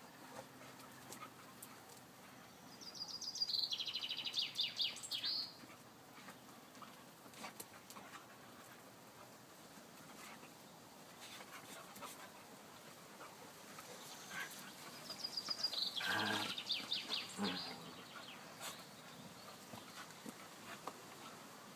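Dogs wrestling in play on dirt, with faint scuffles and panting. A songbird twice sings a high descending trill, about three seconds in and again around fifteen seconds in; these are the loudest sounds.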